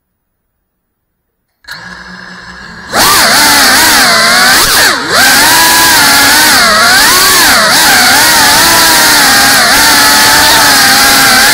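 GEPRC CineLog 35 cinewhoop's brushless motors and ducted propellers, heard from the onboard camera. They spin up quietly about two seconds in, then about three seconds in the throttle comes up for takeoff and the loud whine rises and falls in pitch with each throttle change through the flight.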